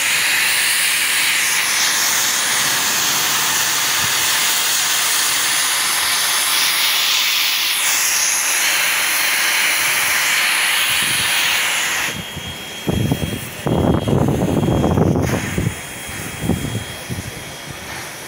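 NSW 59 class steam locomotive blowing off steam with a loud, steady hiss that cuts off suddenly about twelve seconds in. A deep, uneven rumble from the locomotive follows.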